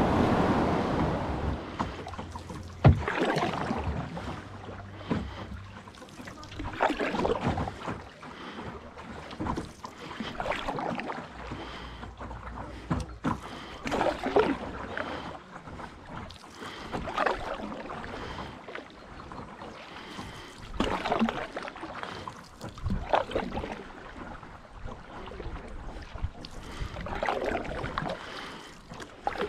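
Paddle strokes splashing in river water at an even pace, one every second or two, with a sharp knock about three seconds in.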